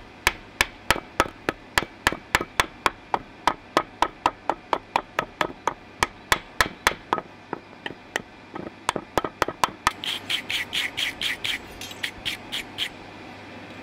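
Blacksmith's hand hammer striking on an anvil in a steady rhythm, about three to four blows a second. Near the end the blows come quicker and ring more brightly, then stop.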